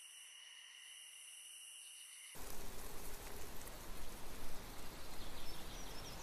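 A faint steady high-pitched hiss with thin whining tones, then about two seconds in an abrupt switch to a louder, even rushing outdoor noise with a low rumble, like wind buffeting the microphone.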